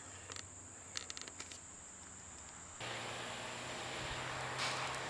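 A few faint clicks, then about three seconds in an electric shop fan switches on abruptly and runs with a steady whoosh and a low hum.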